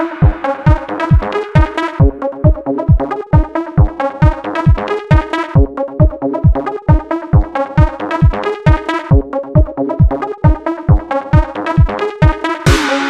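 Electronic dance music: a fast, steady kick-drum beat of about three beats a second under repeating synthesizer chords.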